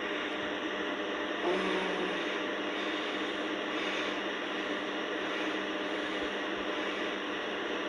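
Steady whirring noise with a brief low tone about one and a half seconds in.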